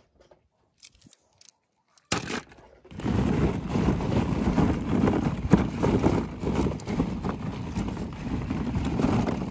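Hollow plastic ball-pit balls rattling and clattering against each other as a hand digs through a tub of them. It starts about three seconds in, after a near-silent opening with a few faint clicks and a single knock.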